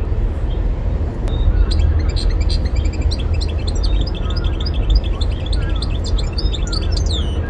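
European goldfinch singing a rapid twittering song of quick high notes, starting about a second and a half in and ending on a falling note near the end, over a steady low rumble.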